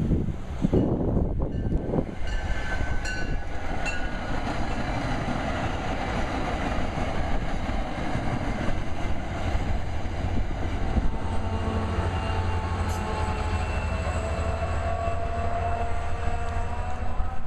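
MBTA commuter rail train running past: a steady rumble with a low diesel locomotive drone and thin high tones drifting in and out.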